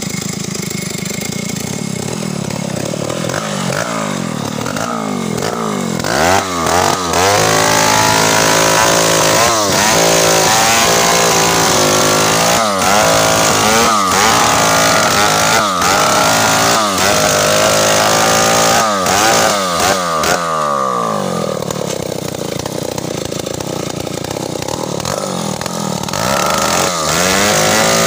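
Two-stroke Stihl chainsaw running at low speed, then revved up about six seconds in and cutting through a log, its engine pitch rising and sagging again and again under load. Around twenty-one seconds in it drops back to a lower steady run, then revs up once more near the end.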